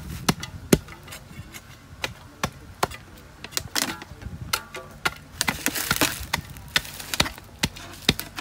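Steel digging bar jabbed repeatedly into loose soil to tamp down backfill around a buried pipe: a run of irregular sharp knocks and gritty thuds, a few a second.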